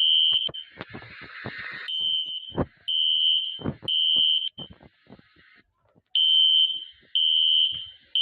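Building fire alarms sounding a high-pitched beep in groups of three, about a second apart, each group followed by a pause of about a second and a half. This is the temporal-three evacuation signal. Scattered knocks and a short burst of noise about a second in fall between the beeps.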